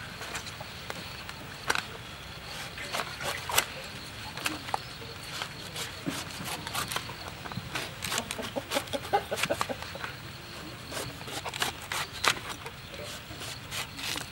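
Large knife cutting and paring the thick, knobbly rind off a whole jackfruit: a string of sharp, irregular cutting clicks, coming thicker in the second half.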